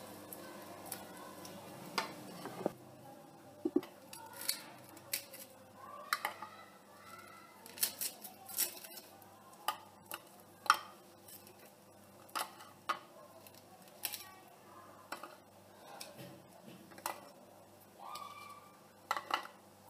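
A knife cutting and prying pieces of crisp puffed-rice and jaggery chikki off a greased surface, and the pieces being set on a plate: an uneven string of light clicks, scrapes and crunches.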